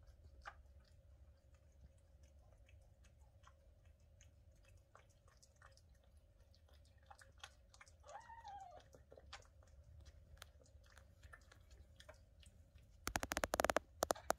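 Turkish Angora mother cat licking her newborn kittens: soft, wet licking and clicking sounds, with one short, faint mew about eight seconds in. Near the end comes a loud burst of rustling and scraping.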